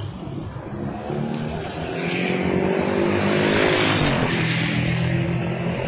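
Motor vehicle engine running close by, growing louder about two seconds in and staying loud, with road-traffic noise.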